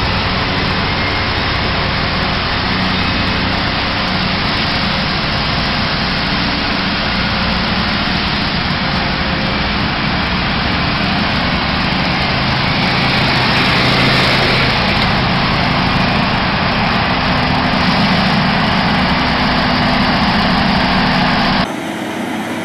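Heavy diesel engines running steadily, with tyre and road noise, as a superload's long multi-axle trailer rolls slowly past. Near the end the sound cuts suddenly to a quieter engine sound.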